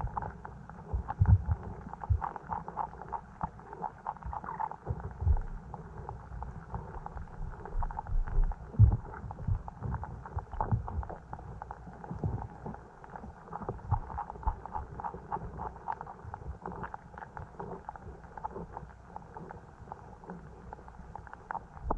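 Stream water gurgling and rushing, heard muffled, with irregular low thumps and knocks; the loudest come about a second in and around nine seconds.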